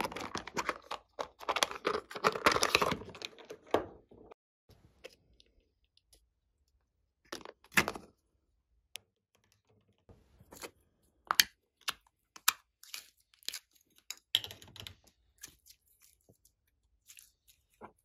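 Hands handling a plastic makeup palette case and a small clay container. Dense crackling and scraping fills the first four seconds, followed by scattered sharp clicks and taps of plastic.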